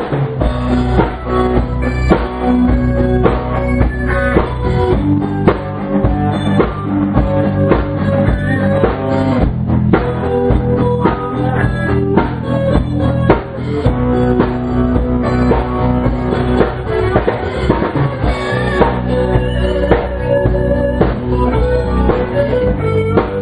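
A small rock band jamming live: a drum kit keeping the beat under several guitars, played instrumentally with steady strumming and held notes.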